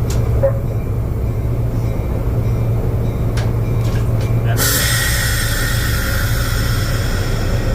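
Fairbanks-Morse H-12-44 switcher's opposed-piston diesel engine running with a steady low hum. A few light clicks early on are followed by a high hiss that starts suddenly a little over halfway through and keeps going.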